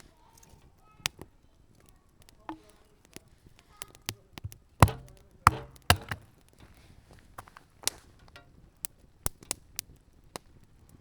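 Campfire wood crackling and popping in scattered sharp clicks, with a few louder knocks about five to six seconds in.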